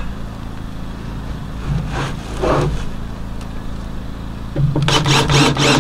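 Power drill driving screws into wooden deck boards, running briefly near the end, over a steady low engine hum in the background.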